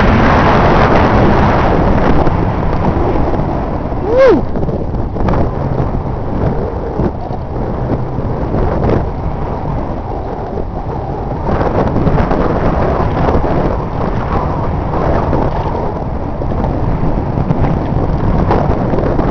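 Wind buffeting the microphone, a steady rough rumble. A brief pitched call that rises and falls comes about four seconds in.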